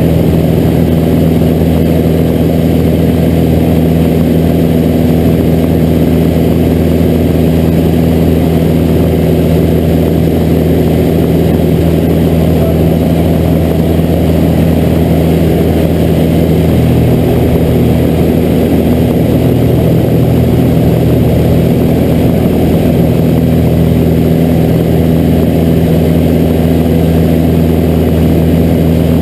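Pitts S2A biplane's four-cylinder Lycoming engine and propeller running steadily, heard from inside the cockpit; the engine note shifts slightly a little past the middle.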